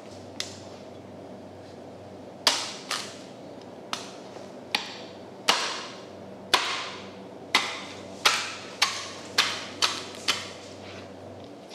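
A large knife being struck again and again to drive it through a giant bluefin tuna's tail section. About a dozen sharp knocks with a brief ring each begin about two seconds in, at uneven spacing of roughly half a second to a second.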